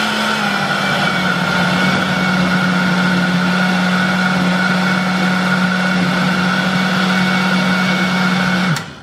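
Oster countertop blender running at a steady speed, blending a thick smoothie of frozen bananas and frozen mixed berries; its motor hum dips slightly in pitch about half a second in and the blender cuts off near the end.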